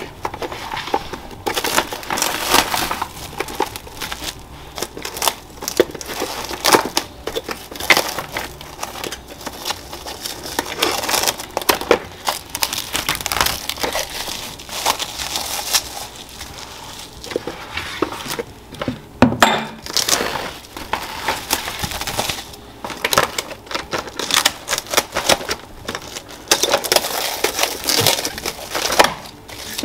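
Plastic cling wrap being pulled, stretched and crinkled over a glass bowl: dense crackling, easing off for a few seconds midway.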